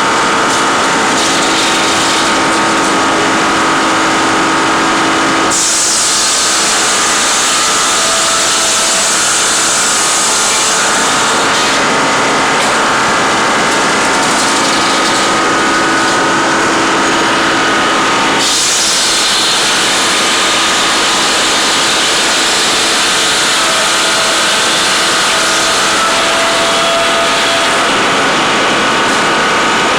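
Engine-driven tree-cutting machinery running steadily, its tone changing abruptly about five and eighteen seconds in.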